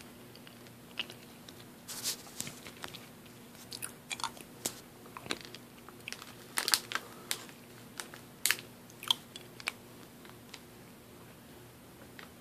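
Close-miked mouth sounds of a hard honey throat drop being sucked and worked around the mouth: irregular sharp clicks and crunches that thin out about ten seconds in.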